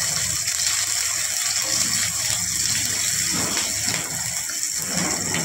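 Chopped onions and cumin seeds sizzling in hot oil in a steel kadhai as they are stirred with a wooden spatula: a steady hiss.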